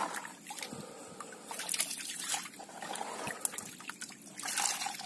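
Water splashing and trickling in a boat's fish hold as hands move through a catch of mullet lying in shallow water. Irregular small splashes and drips, a little louder about two seconds in and again near the end.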